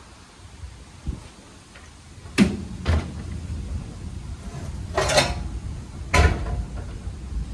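Metal tools and parts clanking and knocking as they are handled, in four sharp knocks: about two and a half seconds in, half a second later, a double knock around five seconds, and one more around six seconds.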